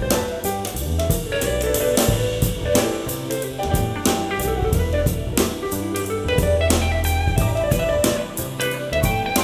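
Instrumental jazz-style music with drum kit and guitar, played back through in-ear monitors for a sound comparison.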